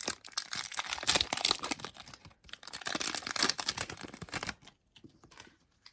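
Foil wrapper of a Pokémon Cosmic Eclipse booster pack being torn open and crinkled: a dense crackling that stops about four and a half seconds in.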